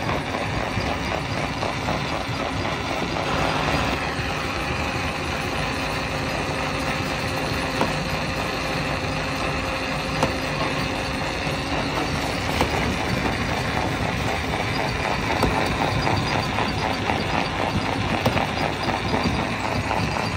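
Stone crusher machinery running: a steady mechanical din with a fine rhythmic pulse and a steady hum under it.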